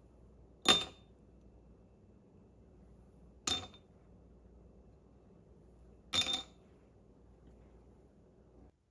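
Ice cubes dropped one at a time into an empty glass: three sharp clinks with a brief glassy ring, roughly every three seconds, the first the loudest.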